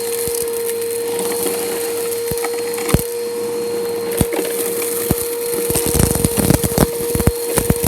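Bissell Powerforce Helix upright vacuum running over concrete: a steady motor whine, with sharp crackles and rattles of grit and debris being sucked up. The crackling comes thick and fast over the last couple of seconds.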